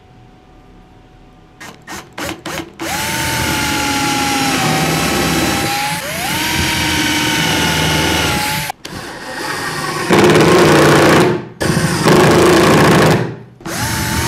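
Milwaukee cordless drill working into pine: a few short trigger blips, then four runs of a few seconds each, the motor whine rising in pitch as it spins up at each start. The last two runs are louder and coarser.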